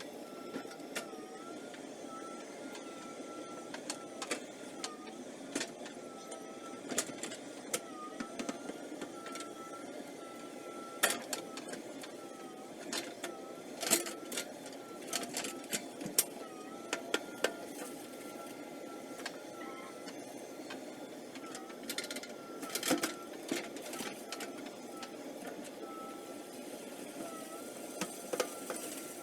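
JCB backhoe loader working: its diesel engine runs steadily under a thin whine that dips every second or two as the hydraulics load, with scattered knocks and clanks from the digging bucket and arm.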